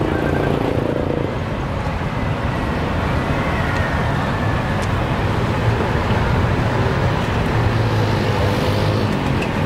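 Steady low rumbling ambience of a busy outdoor street-food market, like road traffic.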